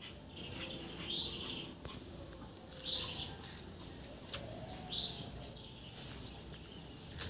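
A bird chirping in short high calls: a run of calls near the start, then single calls about every two seconds.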